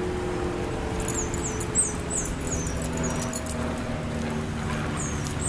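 Small bird chirping: runs of short, high, falling notes about three a second, with a pause in the middle, over a steady low hum.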